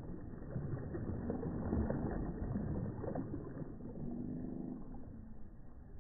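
Small waves washing in close to the microphone. A surge of sloshing water builds in the first half, then eases off.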